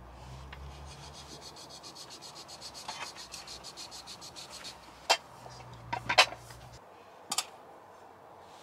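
Quick, even rubbing or scraping strokes for about four and a half seconds, then a few sharp clicks and knocks, the loudest about six seconds in.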